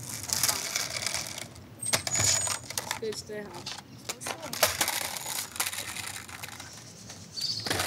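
Skateboards rolling over rough concrete paving, with sharp clacks and clatters from the boards and their trucks and a few brief high squeaks.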